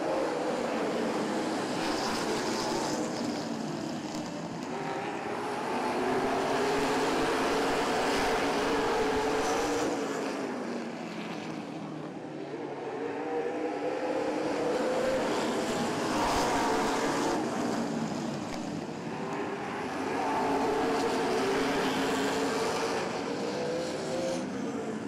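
A field of late-model stock cars racing on a short oval just after a restart, their V8 engines swelling and fading in repeated waves as the pack accelerates and passes.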